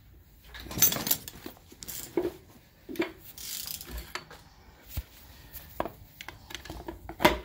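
Hand tools clicking, ratcheting and knocking against the metal parts of a torn-down engine, in irregular sharp clinks about a second apart, the loudest near the end.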